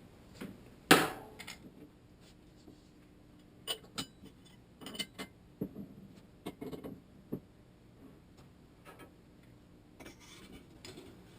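Fork parts being handled and set down during assembly: one sharp knock about a second in, then scattered light clinks and taps.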